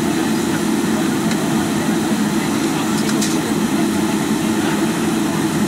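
Steady cabin drone of a Boeing 777-300 taxiing, its jet engines running at low power, heard from inside the passenger cabin.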